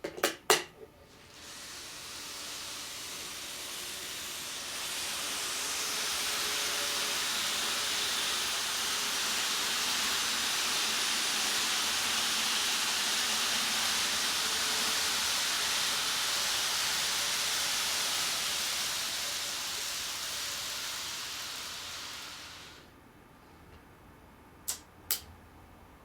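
N-gauge model Shinkansen train running along the track: the model's motor and wheels on the rails make a steady hissing run that builds over a few seconds, holds, then fades as it slows or moves off. A few sharp clicks come at the start and two more near the end.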